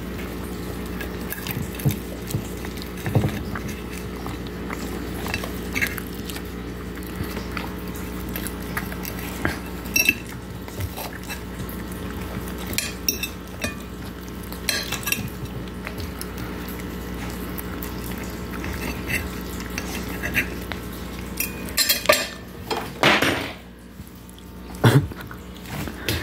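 A metal fork clinks and scrapes on a ceramic plate as pizza is cut into pieces, while a dog eats from the plate. There are scattered sharp clicks over a steady low hum, and a louder rushing noise a few seconds before the end.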